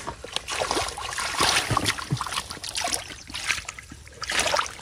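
Shallow muddy water splashing and sloshing around a person wading and feeling through the mud by hand, in irregular bursts.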